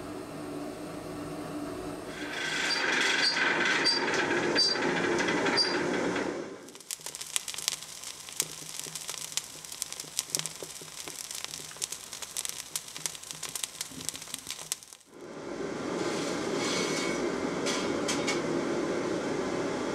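A steady hiss and hum, louder from about two seconds in. Then a coal forge fire crackles with many small pops around the cleaver heating in the coals. Near the end a steady rushing noise returns, with a shovel scraping through the coal.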